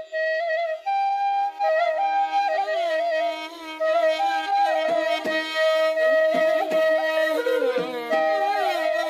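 Instrumental background music: a melody of long held notes with sliding, wavering ornaments between them.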